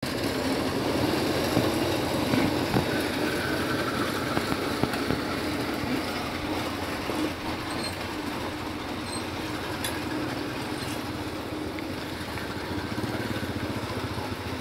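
An engine running steadily with a mechanical clatter.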